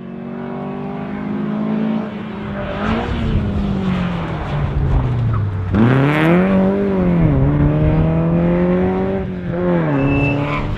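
Volvo 122S engine at full racing pace, revs climbing and falling as the driver works through the gears, with sharp drops in pitch at the shifts around two, five and a half and nine and a half seconds in.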